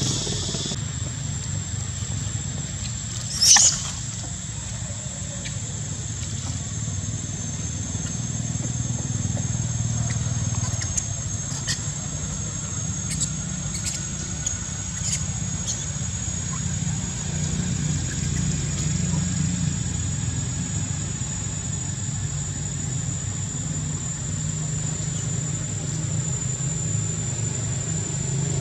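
Steady outdoor background of a continuous low rumble like distant traffic, with a thin high whine held steady over it. One brief sharp high squeal about three and a half seconds in, and a few faint short chirps or clicks a little later.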